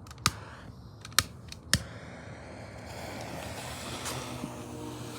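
Butane torch's igniter clicking three times, then the torch lit and hissing steadily as it is held to the firework's fuse.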